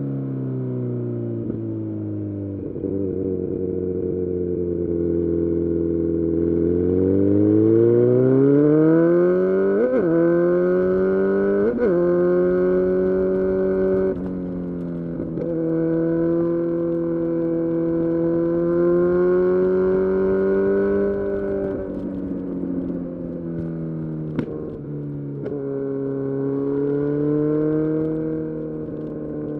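Kawasaki Z900's 948 cc inline-four engine through a full-system exhaust, under way: the pitch climbs steadily under acceleration, breaks briefly twice as gears change, holds a steady cruise, drops off, then rises again near the end.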